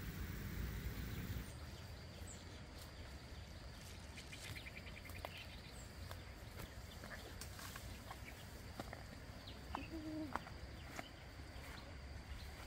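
Faint forest ambience with scattered short bird chirps and calls, including a brief rapid trill about four and a half seconds in. Light rustling and snapping of leaves and stems as someone pushes through dense undergrowth.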